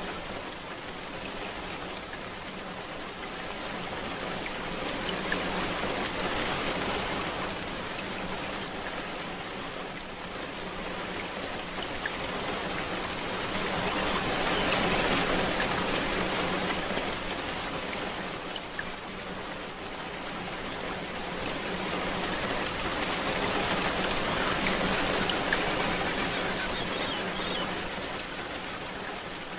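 Steady rain falling, swelling and easing slowly in waves.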